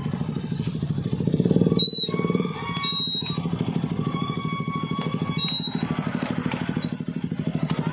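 KTM sport motorcycle's engine idling close by with a steady rapid pulse, swelling briefly about a second and a half in. Thin high-pitched tones sound over it three times, each lasting about a second.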